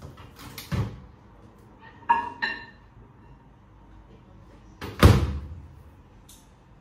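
Built-in microwave oven being loaded: a thump just under a second in, two short ringing tones around two seconds in, then the door shut with a loud thunk about five seconds in.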